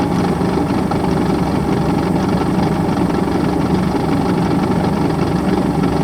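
Piston engine of a WAR Corsair homebuilt airplane idling steadily on the ground, a low, even drone with no change in speed.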